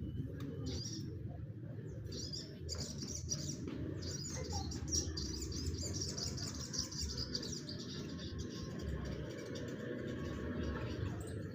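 A group of small caged songbirds chirping and twittering together in a dense, high-pitched chorus, over a steady low background rumble.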